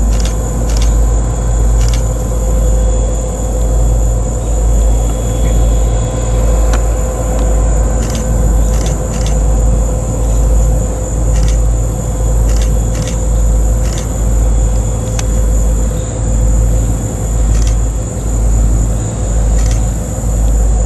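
Low, steady rumble of a Norfolk Southern freight train's diesel locomotives, swelling and easing about once a second.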